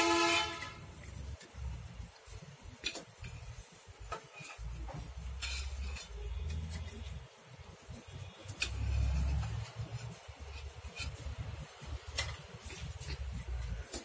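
A horn's steady tone cuts off about half a second in. After that a metal slotted spoon clicks and scrapes against an aluminium pot of water now and then, over an uneven low rumble.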